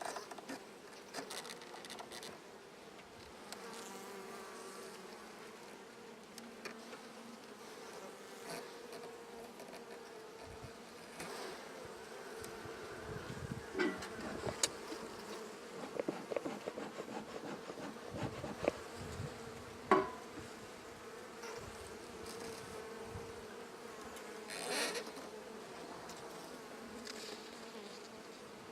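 Honeybees buzzing in a steady hum over an open hive, with scattered clicks and knocks from the wooden frames being handled, the loudest about twenty seconds in.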